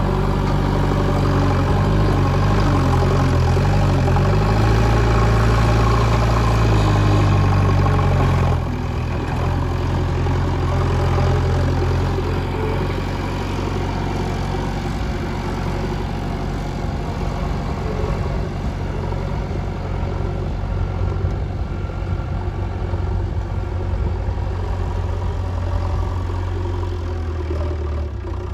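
JCB 3DX backhoe loader's diesel engine running under load, its pitch wavering up and down, then dropping suddenly to a lower, steadier running note about eight seconds in.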